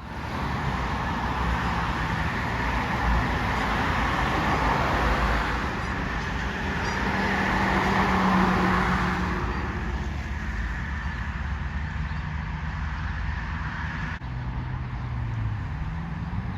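Road traffic: vehicles passing in a steady wash of noise, with an engine note rising near the end.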